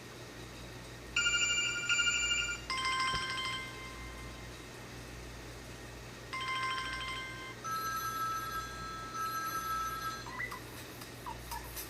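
Samsung Galaxy Y Duos (GT-S6102) ringtones playing: short trilling electronic tone phrases with pauses between them, the pitch pattern changing several times. About ten seconds in, a chirping, whistle-like tone begins.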